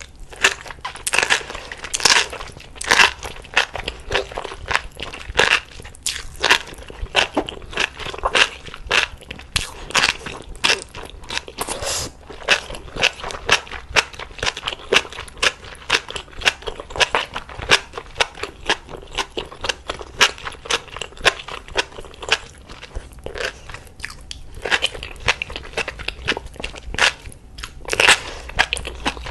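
Close-miked eating: a person crunching and chewing food in rapid, repeated bites, with a short lull about three quarters of the way through.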